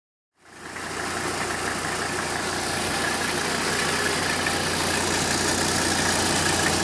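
Mercedes-Benz W123 300TD's five-cylinder turbo-diesel engine idling steadily, fading in within the first half-second. It is running on diesel purge cleaner fed through the injection pump to clean it.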